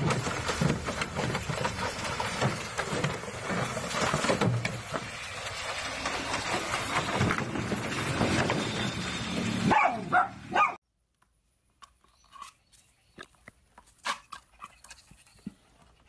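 Two puppies splashing and scrabbling in a plastic wading pool with water from a hose, with yips and a short whine near the end. About eleven seconds in, the sound cuts off, leaving near quiet with a few faint taps.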